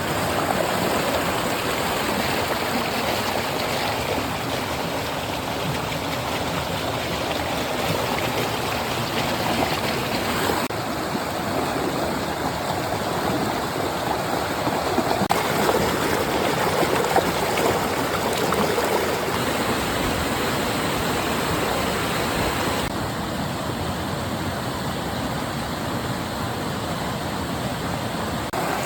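Flowing stream water, a steady rushing, babbling wash of noise. Its tone shifts abruptly a few times.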